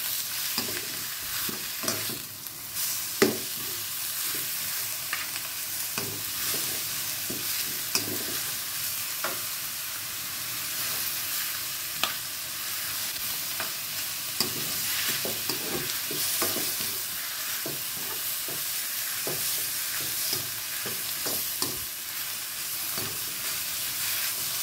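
Pork pieces sizzling in a nonstick wok as a spatula stirs and turns them, with frequent scrapes and clicks of the spatula against the pan and one sharper knock about three seconds in.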